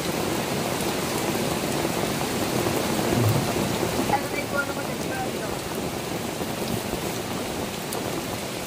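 Steady rain falling, an even hiss, with a soft low thump a little over three seconds in.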